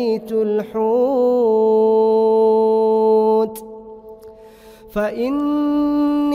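A male reciter chanting the Quran in melodic tajweed style, drawing out a long steady note for about three seconds. After a pause of about a second and a half, a new, slightly higher note begins about five seconds in.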